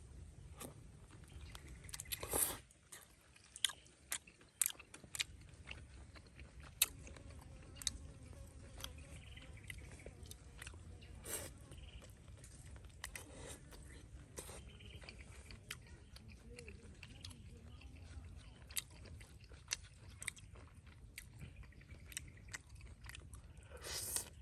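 A person biting and chewing grilled duck: scattered crisp crunches and clicks, with a louder burst about two seconds in.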